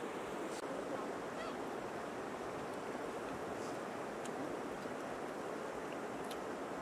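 Steady rush of river water, with a few faint small clicks over it.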